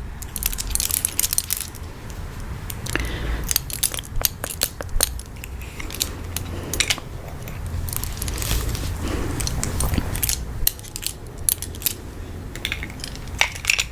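Metal finger rings clicking and clinking against each other and against nails, in an irregular scatter of small sharp taps, made as ASMR trigger sounds.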